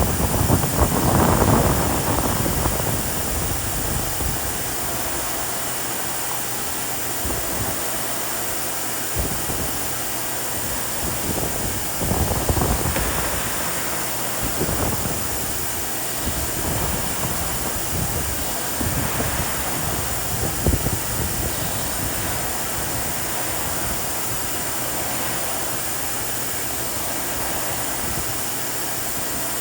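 Vacuum cleaner running steadily over pavement, with a constant high motor whine and irregular low rumbles of wind on the microphone.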